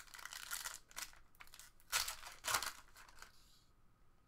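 Foil trading-card pack wrapper crinkling and tearing as it is opened by hand, in several crackling bursts, the loudest about two seconds in, then fading near the end.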